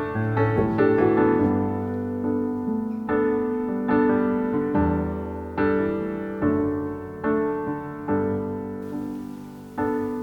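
Soft background piano music: gentle chords and single notes struck and left to ring and fade.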